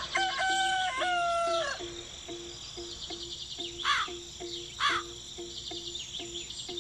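A rooster crowing once, a long held call that ends about two seconds in. Then two short bird chirps about a second apart, over a steady pulsing call repeating about twice a second and high insect-like trilling.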